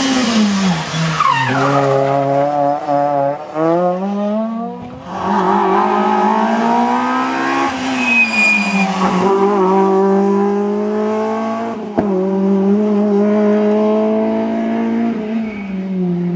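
Rally cars' engines revving hard as they pass one after another: the pitch drops as a car brakes for the bend, then climbs in steps as it accelerates through the gears. The sound changes abruptly about five seconds in, when the next car comes through and holds its engine at high revs.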